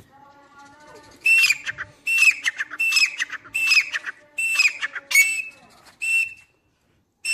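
Grey francolin calling: a quieter lead-in, then starting about a second in, a run of about seven loud, high-pitched call phrases a little under a second apart, with one more note at the very end.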